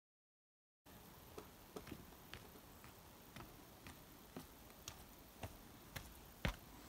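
Faint footsteps on a wooden plank boardwalk after about a second of dead silence: sharp, short ticks about twice a second, a little louder near the end.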